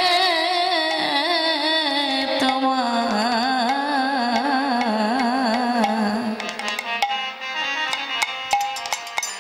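A woman singing a Bengali devotional kirtan, holding a long ornamented note that wavers and slowly sinks in pitch over harmonium. About six seconds in, the voice drops out and drum strokes with sharp, bright hits carry on over the harmonium.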